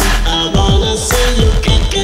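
Electronic music with heavy bass and a steady beat, its low notes sliding downward again and again.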